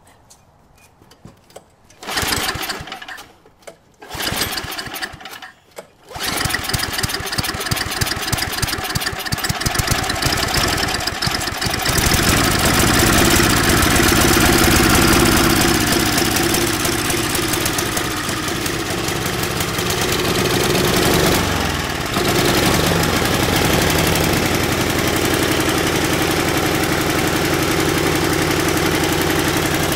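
Small single-cylinder gasoline engine sputtering briefly twice, then catching about six seconds in and running, louder from around twelve seconds with a short dip near twenty-one seconds before settling into steady running. It starts now that fuel has been turned on and the carburetor bowl has filled, after failing to start for lack of fuel.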